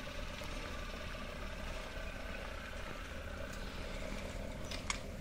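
Steady mechanical hum of running machinery, with a couple of sharp clicks near the end.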